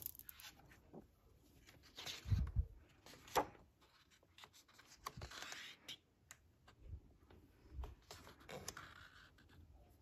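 Hardcover picture book being opened and its pages turned by hand: faint paper rustles and slides, with a couple of soft low thumps as the cover and pages are laid flat.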